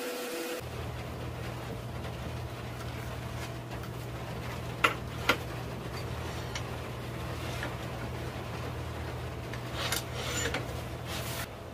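Wood lathe running with a steady low motor hum while the root-burl vase turns on it, with two sharp clicks about five seconds in and a short burst of noise near the end.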